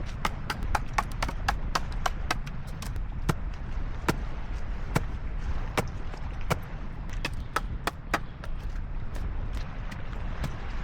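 A series of sharp knocks or chops, several a second in the first few seconds and more spaced out after that, over a steady low rumble.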